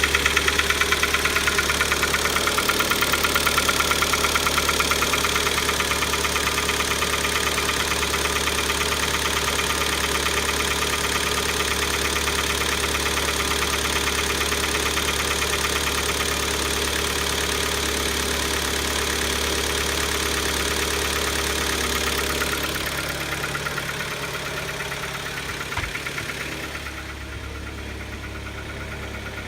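Kia Optima engine idling with a rapid knock, the sign of an internal fault serious enough that the engine had to be replaced. The sound quietens somewhat in the last few seconds, with one sharp click shortly before.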